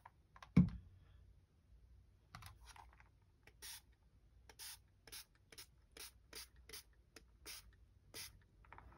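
Trigger spray bottle misting the comic-book paper: about a dozen short sprays, roughly two a second, after a single faint thump about half a second in.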